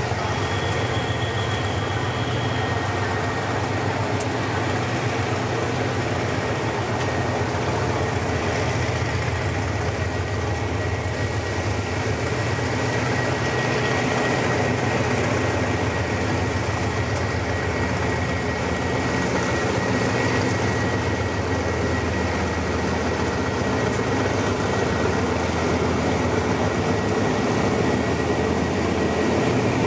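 Diesel-electric locomotive of a metre-gauge sleeper train running as it moves slowly along the platform, a steady low engine drone with a thin high whine, growing slightly louder near the end.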